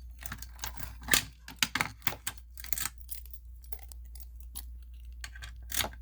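Irregular clicks and light metallic rattling from a fire alarm pull station being handled, over a steady low hum.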